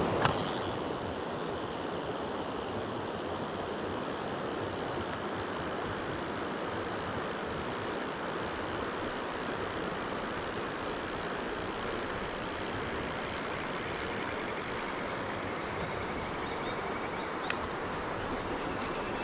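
Mountain stream water rushing steadily, with one faint click near the end.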